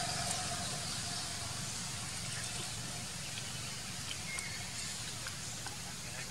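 Steady outdoor background noise, a low rumble under an even hiss, with a few faint clicks.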